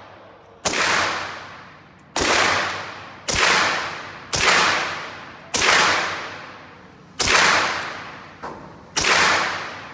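Slow aimed semi-automatic fire from a B&T GHM9 9x19mm pistol: seven loud shots roughly a second or so apart, with a fainter crack just before the last. Each shot rings on in a long echo off the indoor range.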